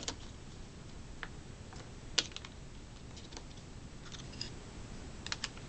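Scattered small clicks and taps of AA nickel-metal hydride batteries being pushed into a plastic battery pack and the pack handled on a hard countertop, with one sharper click a little over two seconds in.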